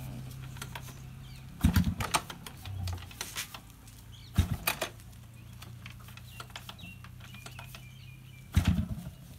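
Yamaha RX100's two-stroke single-cylinder engine being kicked over three times, each kick a short clatter of the kick lever and the engine turning over, about three seconds apart, without catching: a hard cold start after standing out in rain overnight.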